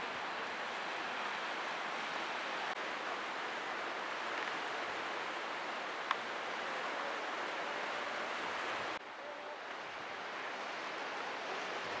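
Steady rush of the Köprüçay river's rapids, a continuous even hiss of flowing water. The level drops suddenly about nine seconds in and then slowly builds again. A single sharp click about six seconds in.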